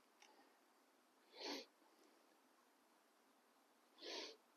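Near silence broken by two soft, short breaths, one about a second and a half in and another near the end, of a person breathing out.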